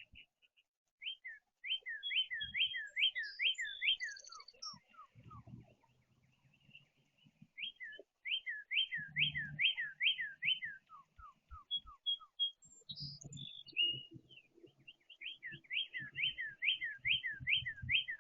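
Northern cardinal singing: three bouts of clear, rapidly repeated slurred whistles, each bout trailing off into a few lower notes. Short high chips from other birds fall between the bouts, and soft low thumps run underneath.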